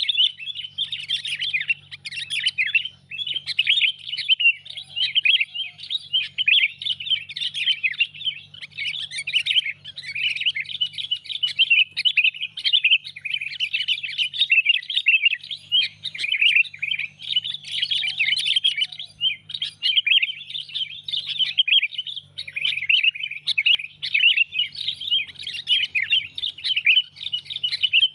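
Sooty-headed bulbuls (kutilang) calling in a dense, unbroken stream of quick chirps and short whistled notes: a bird-trapping lure call meant to draw in other bulbuls.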